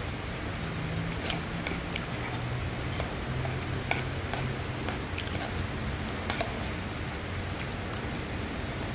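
Metal spoon clinking and scraping against a nonstick frying pan while stirring fried rice, in about a dozen irregular clicks. Under it runs a steady hiss with a low hum.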